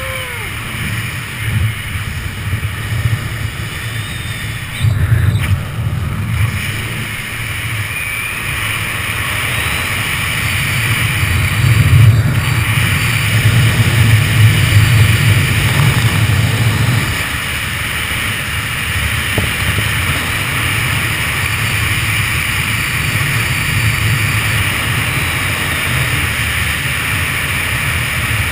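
Wind buffeting the camera microphone in flight: a steady low rumble that swells in gusts, strongest in the middle and easing about two-thirds of the way through.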